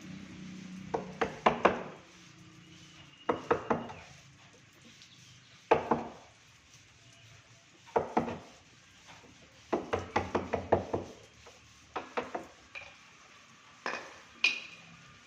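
Hammer tapping on wood in short bursts of one to six quick, sharp strokes, about every two seconds, as a hinge is fitted to a wooden door.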